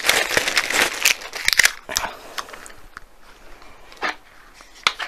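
Plastic wrapping crinkling for about two seconds as a car phone holder is unwrapped, then a few separate light clicks as its plastic parts are handled.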